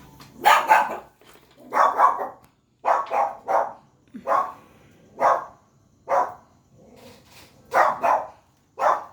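A dog barking repeatedly, about a dozen short, loud barks, roughly one a second and often in quick pairs.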